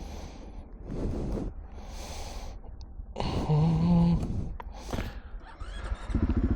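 Heavy breathing in bursts about once a second, with a short groan about three seconds in; near the end a motorcycle engine starts and runs with an even, pulsing idle, likely the rider's single-cylinder KTM 500 EXC.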